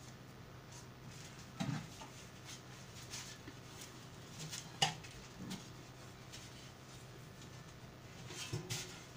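Metal oven tray being handled and greased with oil: scattered light knocks and clinks, the sharpest about five seconds in.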